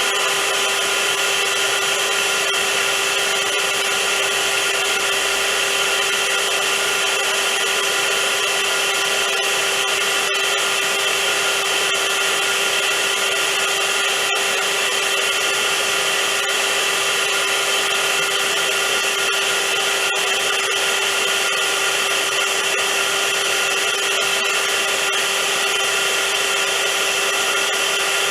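Vacuum cleaner motor running steadily and loudly, a continuous whirring hiss with a fixed whine, unchanging throughout.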